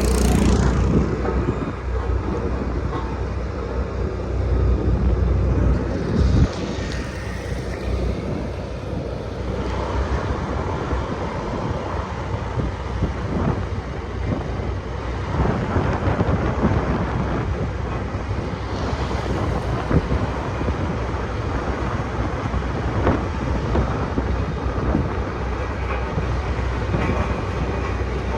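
Sakai SV520 road roller's diesel engine and machinery running steadily with a heavy low rumble, with one sharp knock about six seconds in.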